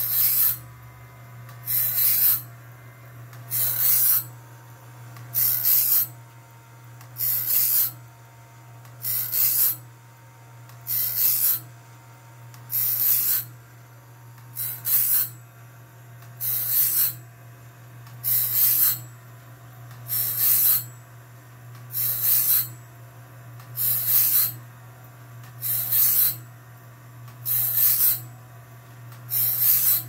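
Cat Claw band sawmill blade sharpener grinding the blade tooth by tooth. A short burst of grinding wheel on steel comes about every two seconds as the blade advances to the next tooth, over the steady low hum of the grind motor.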